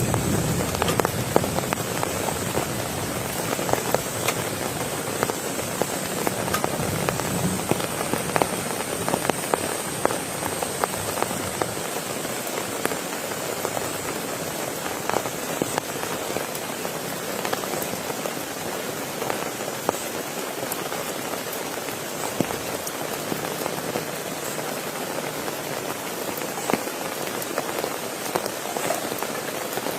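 Steady rain falling, a dense hiss with many separate drops ticking on a surface. A low rumble dies away in the first second or two.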